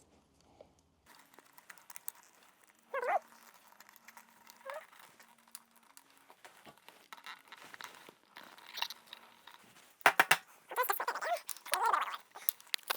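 A dog whining in short calls that slide down in pitch, one about three seconds in and a denser run near the end, with a few sharp clicks of small parts being handled.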